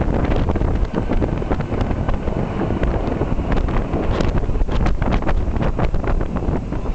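Wind buffeting the microphone over the low rumble of a Lufthansa Airbus A340-600's four Rolls-Royce Trent 500 jet engines climbing out after takeoff, with a crackling texture throughout.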